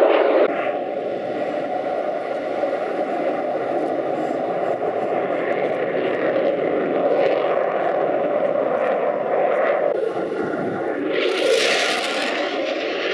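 Fighter jet's engines heard as it flies its display: a steady jet noise, with a brief, brighter hiss about eleven seconds in.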